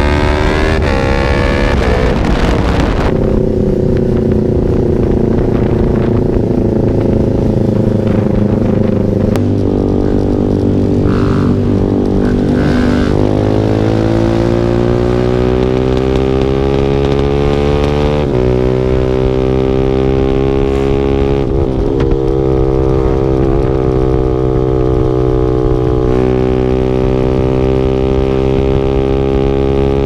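Motorcycle engine and exhaust running hard under acceleration, its pitch climbing steadily and then dropping back at each gear change, several times over.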